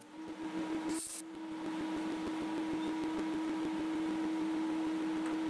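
MIG welder running with a steady hum, with a short hiss about a second in.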